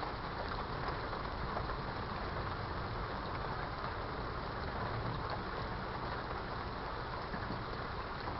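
Steady rainfall: an even hiss with many small drop ticks scattered through it.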